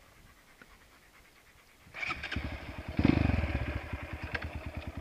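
Honda CRF230 dirt bike's single-cylinder four-stroke engine starting about two seconds in, revving once about a second later and settling into a steady idle.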